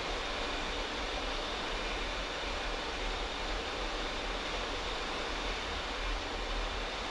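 Steady rushing noise of air and engines on a Boeing 737-800 flight deck in flight, with a faint steady high tone over it.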